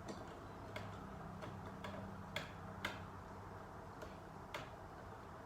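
Light, irregular metallic clicks and ticks, about eight in five seconds, from the screws and blade of a ceiling fan being worked loose, over a faint steady low hum.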